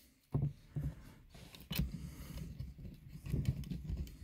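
Hands fitting the plastic lens cover back onto a Renault Twingo 2's ceiling light: a few light plastic clicks spaced out in the first couple of seconds, then softer handling noise.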